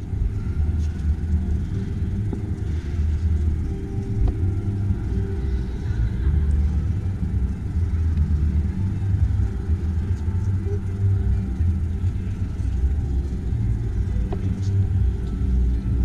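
Uneven low rumble on the microphone of a handheld camera being carried while walking, with faint voices in the background.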